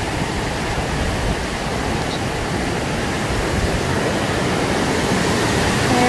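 Steady rushing of a large waterfall, the High Falls of the Baptism River, an even continuous noise that grows a little louder.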